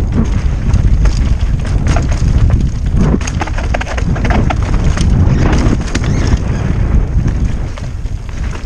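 Wind buffeting the microphone of a camera on a downhill mountain bike at speed on a rocky trail. Through it come rapid clatters and knocks of the bike's tyres, chain and suspension hitting rocks.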